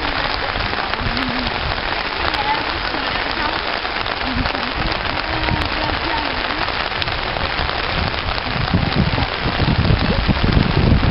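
Steady rain: a dense, even hiss of drops, with faint distant voices. Low wind rumble on the microphone builds in the last few seconds.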